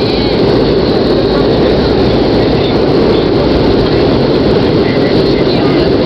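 Steady, loud cabin noise of a Bombardier Dash 8-300 rolling out on the runway after landing. It is a mix of its twin Pratt & Whitney PW123 turboprops and the rush of air and wheels heard through the fuselage.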